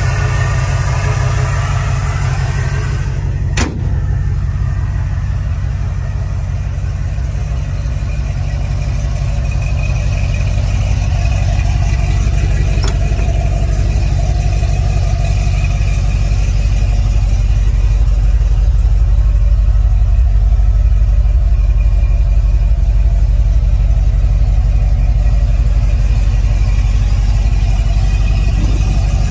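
The pickup's V8 engine idling steadily, a deep even rumble that grows a little louder past the middle, with a single sharp click about three and a half seconds in.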